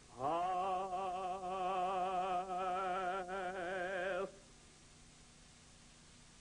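A man singing one long held note with wide, operatic vibrato, the drawn-out last word of the theme-song line, lasting about four seconds. It stops sharply, leaving a faint hiss.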